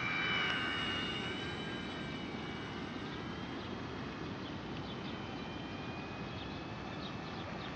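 Micro RC Cessna's tiny 3500kv electric motor and propeller whining in flight on a single-cell lipo: a high steady whine of several tones, loudest about half a second in, then holding steady as the plane flies on.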